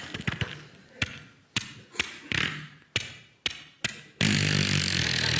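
Mouth-made sound effects: a string of about seven sharp knocks or thuds, one with a short hiss. About four seconds in, a loud, rough buzzing drone starts and holds steady.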